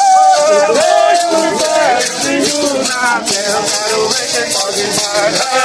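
Several voices singing an indigenous chant in Portuguese, with maracas shaken along in rhythm.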